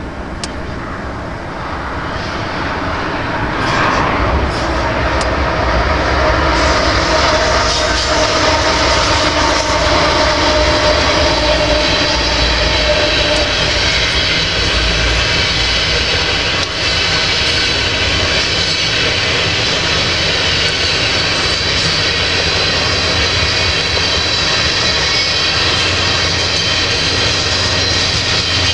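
Freight train of tank cars rolling past: a steady rumble and clatter of steel wheels on rails, building over the first few seconds and then holding even, with thin steady high tones over it.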